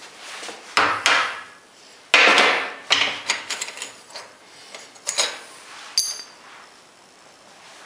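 Steel milling-machine clamp pieces knocking and clanking against a steel bench vise and each other as they are handled, a series of irregular sharp metal knocks. The loudest is about two seconds in. A knock about six seconds in rings briefly.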